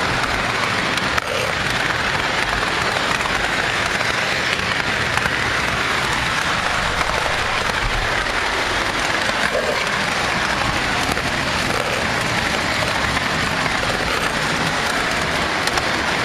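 O scale three-rail toy train rolling along tubular metal track, heard from on board: a steady rushing clatter of metal wheels on the rails.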